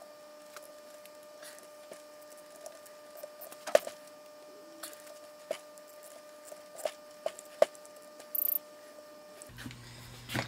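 Hand tools tightening the field coil fasteners on a 12-volt tractor starter housing: a ratchet and screwdriver giving scattered, irregular metal clicks and taps. A faint steady hum runs underneath.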